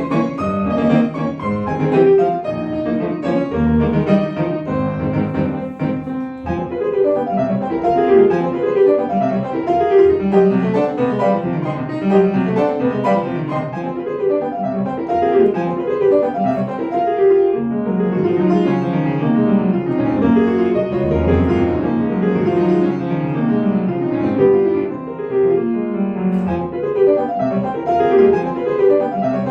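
Solo piano playing classical music: dense, fast-moving passages of notes over deep bass notes struck now and then.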